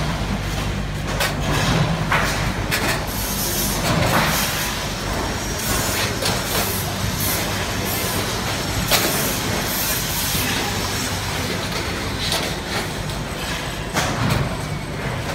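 Steel filing-cabinet frame and sheet-steel panels clanking and rattling as they are handled and fitted together, with scattered sharp metal knocks, the sharpest about nine seconds in, over a steady low hum.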